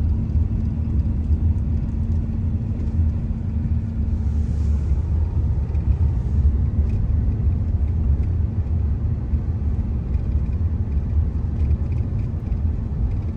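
Steady low rumble of a truck's engine and tyres on the move, heard from inside the cab. A faint steady hum runs under it and drops out about four seconds in.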